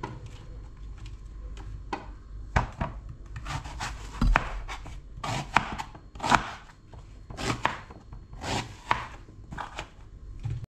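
Kitchen knife cutting peeled raw turnips into chunks on a plastic chopping board: the blade slicing through the firm root and knocking on the board in an irregular series of strokes.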